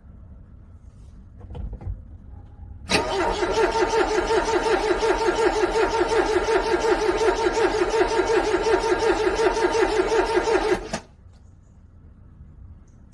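A car's starter cranking a cold engine for about eight seconds in a fast, even rhythm without the engine catching, then stopping abruptly.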